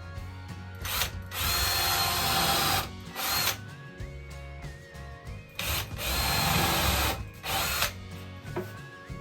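Power drill run in several bursts, drilling and driving countersunk screws into pine boards, with the two longest runs about a second and a half in and again past the middle.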